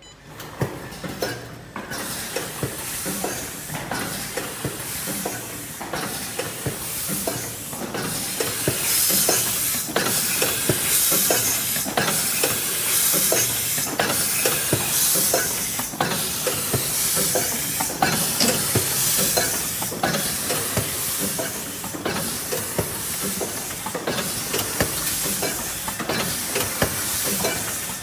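Automatic horizontal cartoning machine for disposable nitrile gloves starting up and running: a dense clatter of clicks and knocks from its mechanisms, with a burst of hiss about every two seconds, in step with its set speed of 30 cartons a minute.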